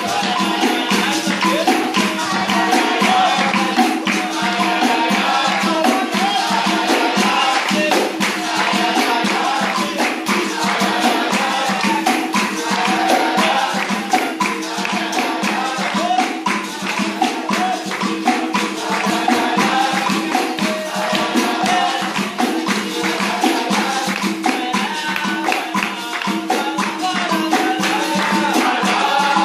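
Capoeira roda music: berimbaus, led by the low gunga, ringing steady tones under a pandeiro tambourine beat, with voices singing over the rhythm.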